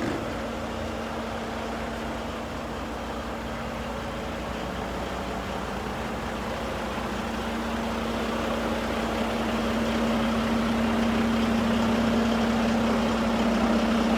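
Semi truck's diesel engine idling, a steady hum with a constant low tone that grows a little louder over the second half.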